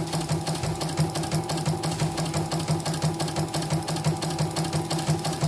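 CNY portable computerized embroidery machine stitching at speed, its needle bar beating out a fast, even rhythm as the hoop moves under it. It runs smoothly through the design after repair of its uneven stitching.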